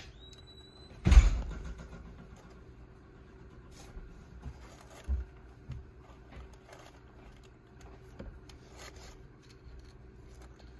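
A single loud thump about a second in, then scattered light knocks and scrapes from kittens moving about a carpeted cat tree and litter box in a wire pen, over a faint steady hum.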